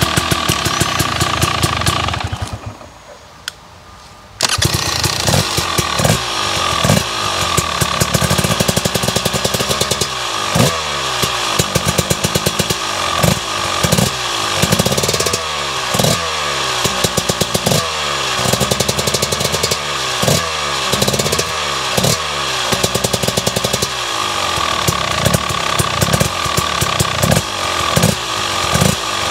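KTM 300 EXC TBI's single-cylinder two-stroke engine running through an aftermarket Akrapovič/FMF exhaust. It goes quiet for about two seconds a couple of seconds in, then runs again, revved in repeated quick throttle blips that fall back to idle, about one a second through the second half.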